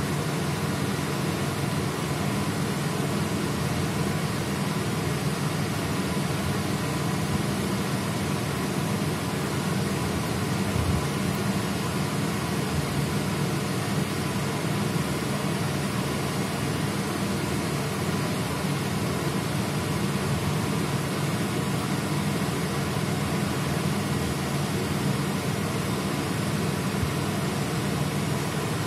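Steady machinery hum with an even rushing hiss over it, unchanging throughout.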